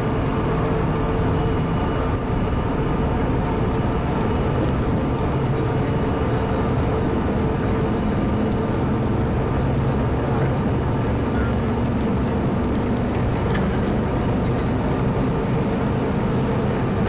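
Jet airliner engines running at takeoff power during the takeoff roll, heard from inside the passenger cabin: a loud, steady noise with a steady hum underneath.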